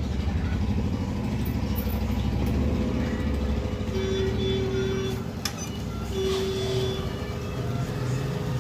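HP LaserJet 1020 laser printer running a print job, its drive motor and gears turning steadily, with two short tones in the middle and a click between them. It runs without the abnormal noise that its old mechanism assembly made.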